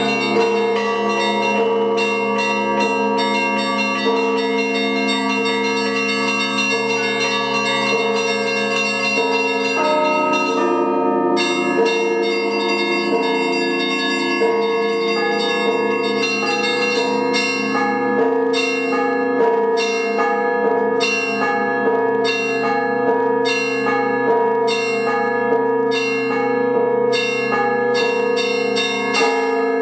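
Orthodox church bells rung by hand in an improvised peal: the deep bells hum on underneath while the small high bells are struck again and again. The small bells stop briefly about a third of the way in, then return as separate, evenly spaced strokes.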